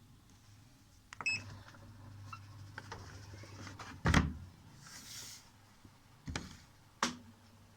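Automatic washing machine being started on its spin cycle: a short control-panel beep about a second in, then a loud clunk, a brief hiss and two more clunks, and a low steady hum after the last clunk as the machine, fitted with a newly replaced gearbox, starts running.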